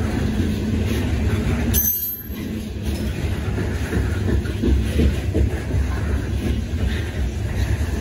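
Train rolling past: a steady low rumble of wheels on the rails, with one sharp click about two seconds in.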